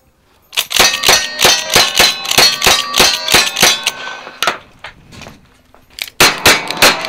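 Rapid string of lever-action rifle shots at steel targets, each hit followed by the steel plates ringing, then after a pause of about a second and a half the first quick shots from a single-action revolver at the steel.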